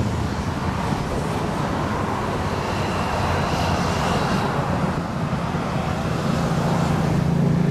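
A dense stream of motorcycles passing along a dual carriageway, their engines and tyres blending into one continuous, steady noise. About three-quarters of the way through, one engine's low note stands out more strongly.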